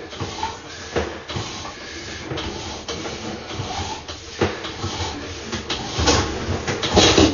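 Sewer inspection camera being pushed along a drain line: irregular knocks and scraping from the push cable and camera head over a steady hiss, busiest and loudest near the end.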